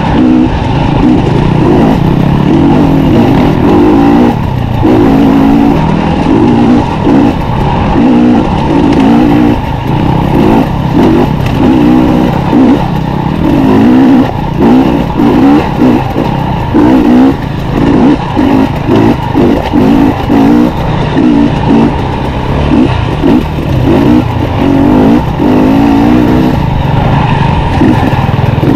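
Dirt bike engine, close on the rider's own bike, revving up and down with the throttle. Through the middle stretch the note keeps dropping away briefly as the throttle is rolled off and on again.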